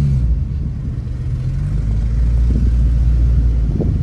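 Low hum of a small car's engine and tyres heard inside the cabin while driving slowly in city traffic. The engine note drops in pitch shortly after the start.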